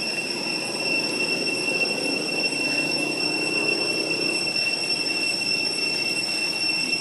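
Steady, unbroken high-pitched drone of cicadas, holding one even pitch, over a low rumble.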